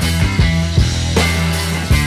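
Background rock music with a steady beat and a sustained bass line.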